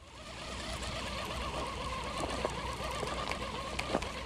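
Shimano Curado 201 baitcasting reel being cranked on a retrieve: a steady whirring with a few sharp clicks.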